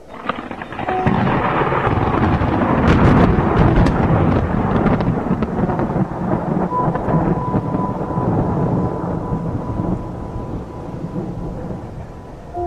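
Thunder sound effect: a thunderclap breaks suddenly, crackles sharply a few seconds in, then rumbles on and slowly fades.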